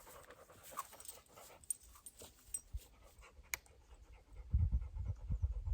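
Black Labrador retriever panting in quick, steady breaths. A single light click comes about three and a half seconds in, and a low rumble starts near the end.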